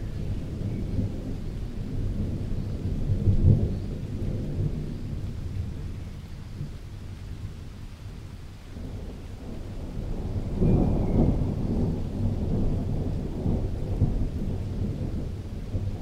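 Thunder rumbling in long low rolls: one swells about three seconds in and fades, then a second, stronger roll builds from about ten seconds in and slowly dies away.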